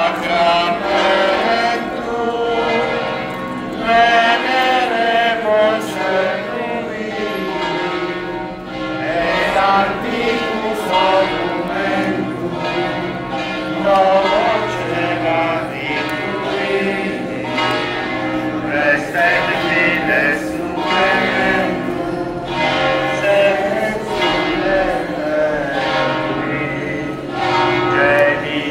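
Church bells ringing continuously in a dense peal, with voices singing along underneath.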